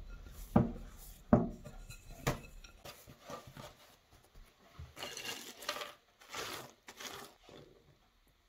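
Three sharp knocks on a tabletop about a second apart as dough and a glass bowl are handled. Later come two short stretches of pattering as walnuts, cashews and raisins are poured from a container onto the flattened dough.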